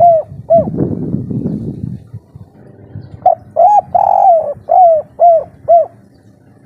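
Spotted dove cooing in the 'kuk 3' song style: the last two notes of one phrase at the start, then about three seconds in a full phrase of about six coos with one longer note in the middle. A low rumbling noise runs under the first two seconds.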